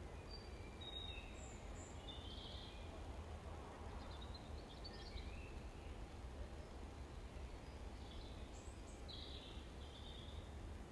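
Birds calling faintly: scattered short chirps and thin whistles throughout, over a low steady rumble.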